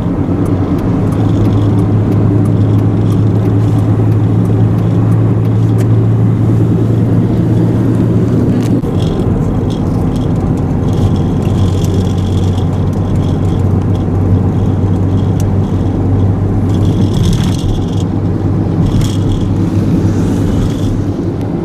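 Steady engine drone and tyre and road noise inside a car cruising on a highway. The low hum shifts slightly in pitch about nine seconds in.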